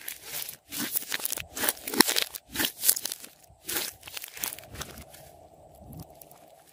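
Hands squeezing and kneading glossy slime with small foam beads mixed in: a quick run of wet crackles and pops from trapped air. They thin out and go quieter about two-thirds of the way through.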